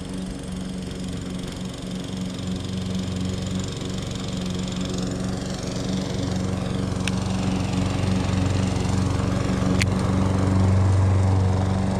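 Lawn mower engine running steadily, growing louder as it comes closer. There are two faint clicks partway through.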